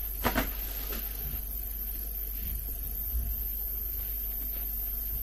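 Brief crinkle of a candy wrapper being handled, twice about half a second in, then quiet room tone with a steady low hum.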